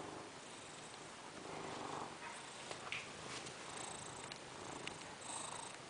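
A domestic cat purring steadily, with a few faint clicks.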